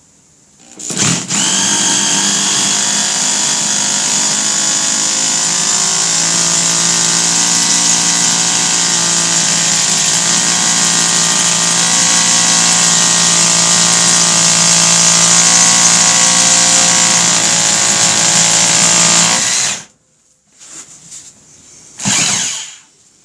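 Bosch Bulldog Extreme SDS-plus rotary hammer drill in hammer-drill mode, boring a 1/2 inch hole into a concrete floor. It starts about a second in, runs steadily for about nineteen seconds and stops suddenly, with a brief sound near the end.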